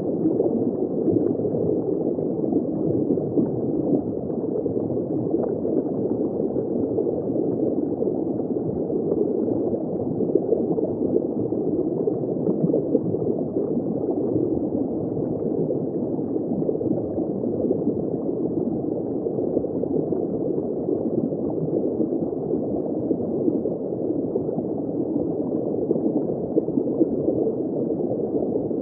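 Underwater ambience heard from just below the surface: continuous dense bubbling and gurgling of water, muffled, with almost no high tones and no separate events.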